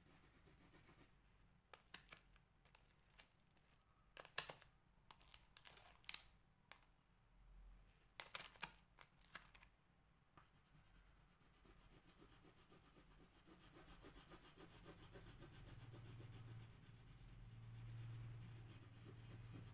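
Faint scratching of a crayon rubbed back and forth on paper, growing a little louder in the second half. A few sharp clicks and taps come in the first half.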